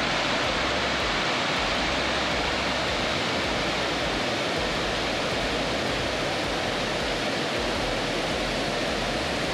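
Vazhachal Falls: a wide cascade of white water tumbling over stepped rock slabs, a steady rushing noise.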